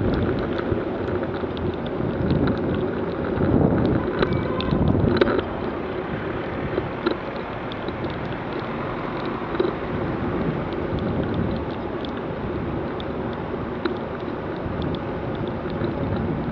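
Road and traffic noise from a vehicle moving through wet city streets, with wind buffeting the microphone. The buffeting is heavier in the first five seconds, then settles to a steadier rush.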